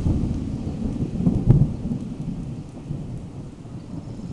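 A peal of thunder: deep rumbling that sets in suddenly, swells to its loudest about a second and a half in, then slowly dies away.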